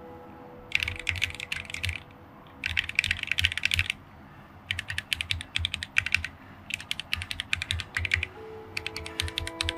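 Pabile P20 mechanical macropad fitted with Akko Sakura switches being typed on: five quick runs of rapid keystrokes, each about a second long, with short pauses between. Soft background music with held notes plays underneath.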